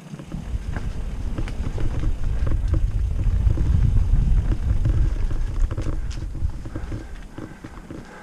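Wind buffeting the microphone as the mountain bike rides fast down the trail: a heavy low rumble that starts suddenly, builds to its loudest midway and fades out near the end, with scattered rattles and knocks from the bike over rough ground.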